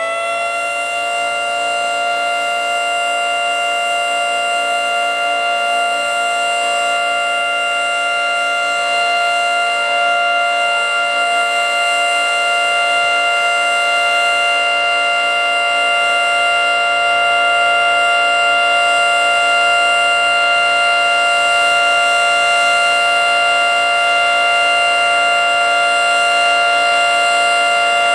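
Federal Signal 3T22 three-tone outdoor warning siren sounding its steady alert: it finishes winding up to full pitch right at the start, then holds a loud, steady chord.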